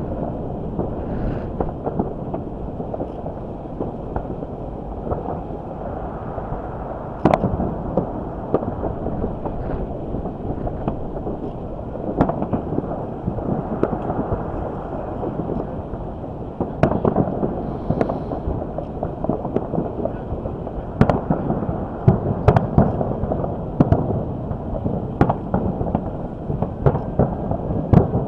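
Fireworks bursting: sharp booming reports over a continuous low rumble, with the bursts coming faster in the second half. Wind buffets the microphone throughout.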